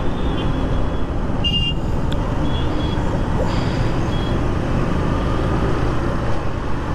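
Steady wind rush and road noise from a moving motorcycle in city traffic, with a brief faint high tone about a second and a half in.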